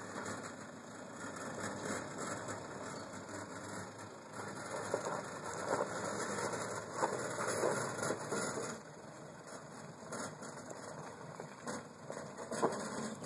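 Toyota 4WD engine running at low revs as the vehicle crawls over a steep, rocky dirt track, with scattered crunches and knocks from the tyres on loose stones, busiest in the middle and again near the end.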